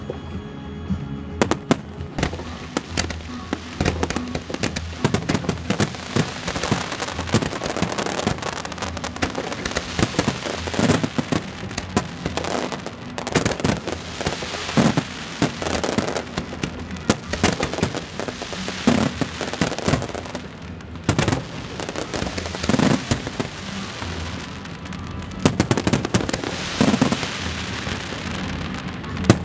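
Aerial fireworks display: shells bursting overhead in a dense, irregular series of loud bangs, thickest around the middle and again near the end, with crackling between them. Music plays underneath.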